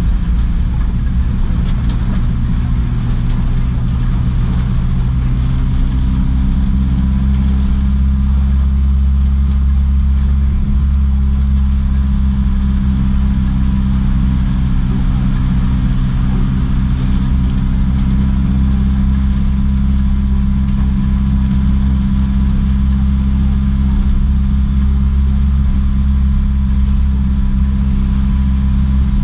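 JAC truck's diesel engine running steadily on the road, a continuous low drone that rises slightly in pitch a few seconds in and then holds, with a faint steady whine alongside.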